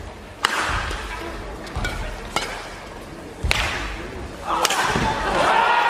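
Badminton rally: four sharp racket hits on the shuttlecock echoing in an arena, the first and last loudest. About four and a half seconds in, the crowd breaks into cheering and shouting as the rally ends.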